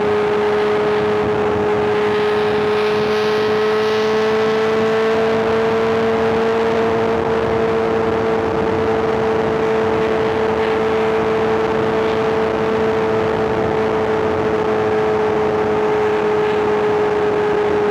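Superbike inline-four engine running at steady cruising revs: one constant engine note that rises a little in pitch and then eases back, over a steady rush of wind noise.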